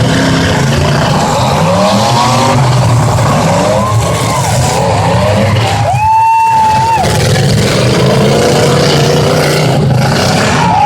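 Several demolition-derby truck engines revving hard at once, their pitches rising and falling over one another. A steady high tone cuts through for about a second midway.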